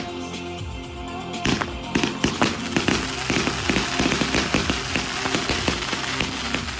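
Low-noise fireworks going off in a dense run of sharp pops and crackles, starting about a second and a half in, over background music.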